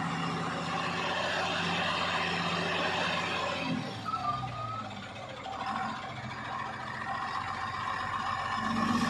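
Tata tipper truck's diesel engine running steadily as the raised dump body unloads soil. About four seconds in, the engine note shifts as the truck creeps forward. A steady higher-pitched tone carries on over the engine.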